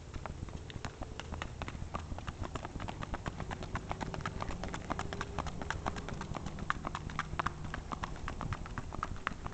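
Paso Fino mare's hooves striking asphalt in its quick, even four-beat gait: a rapid run of clip-clop hoofbeats, many per second, loudest about two-thirds of the way through.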